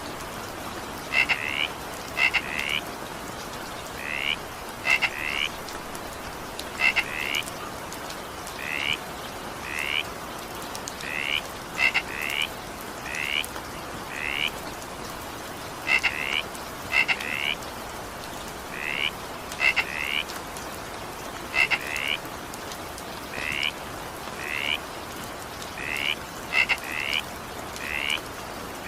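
Frogs croaking: short, high, rising calls, often in quick pairs, repeating about once a second over a steady hiss of rain.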